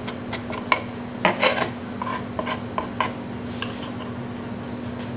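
Small knife scraping and tapping against a plastic cutting board while trimming fat from quail skin: a quick string of short scrapes and clicks over the first three seconds, then quieter.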